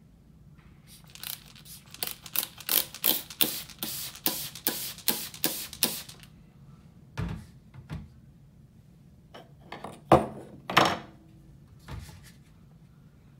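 A run of short, sharp sounds, about two to three a second for some five seconds. Then a few separate knocks of a 3D-printed plastic door-opener tool being moved on a stone countertop, the loudest about ten seconds in.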